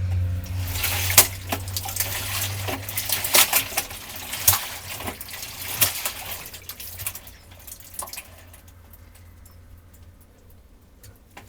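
Water sloshing and splashing in the drum of a toy washing machine during a rinse with fabric softener, in irregular splashes that thin out toward the end. A low hum underneath dies away about two seconds in.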